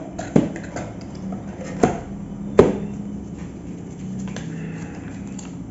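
Cardboard box and paper inserts being handled and pulled out, with soft rustling and a few sharp taps and knocks. The loudest tap comes about two and a half seconds in.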